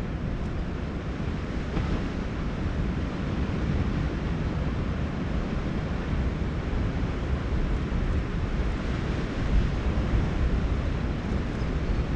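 Wind buffeting the camera microphone in a low, gusting rumble, over the steady wash of ocean surf.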